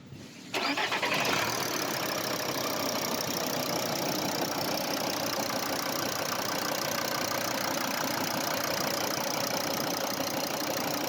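Volkswagen Crafter's 2.5 TDI (BJL) five-cylinder diesel engine starting warm about half a second in and settling into a steady idle. The hydraulic valve lifters are not chattering or clattering at this warm restart, though they are worn and due for replacement.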